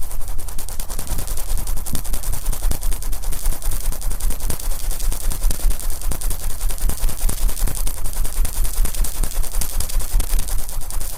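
Wet, oiled cotton swabs rubbing and massaging the ears of a binaural microphone. They give a dense, rapid crackling close on the mic, over a low rumble.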